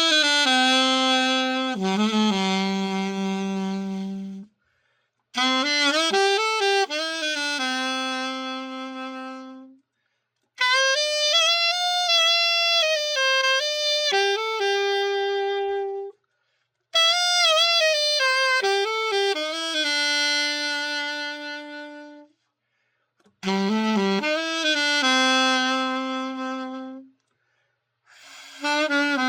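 Selmer Super Action 80 Series II alto saxophone playing a melody in short phrases, each ending on a held lower note, with brief silences between them: a play test of the freshly overhauled horn.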